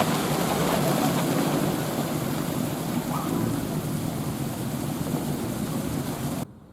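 A train running close by: a steady rushing noise with a low hum, which cuts off abruptly near the end.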